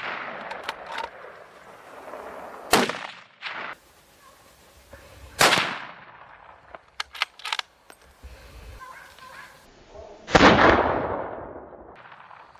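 Hunting gunshots: sharp single shots about three seconds in and again at about five and a half seconds, then the loudest one near the end with a long rolling echo.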